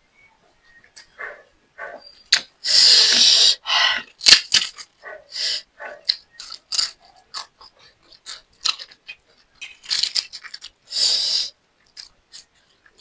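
Close-miked eating of fried rice with egg: a person chewing with many short wet mouth clicks and smacks, and two longer hissing bursts, one about three seconds in and one near the end.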